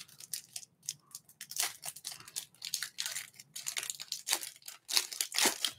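Panini Select UFC trading-card pack being torn open by hand, its shiny wrapper ripping and crinkling in a run of irregular crackles that are loudest near the end.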